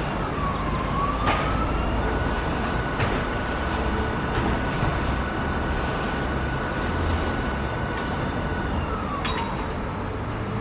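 Distant jet engines of a Boeing 777-300 taxiing onto the runway: a steady whine that dips in pitch about a second in, holds level, then falls near the end, over a low rumble.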